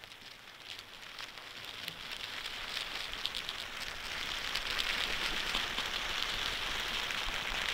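Piezo contact-microphone recording from inside an ant nest: a dense, fine crackling of countless tiny clicks and rustles. It fades in and grows steadily louder.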